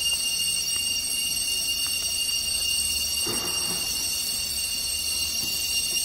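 Chorus of crickets: a steady, high-pitched trilling at several pitches at once that doesn't let up.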